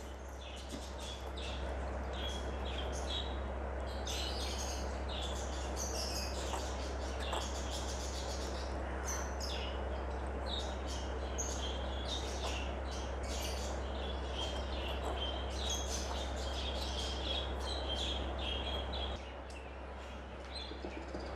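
Newborn puppy suckling on a feeding bottle: quick, irregular wet sucking clicks with small high squeaks, which stop about two seconds before the end as the bottle is taken away.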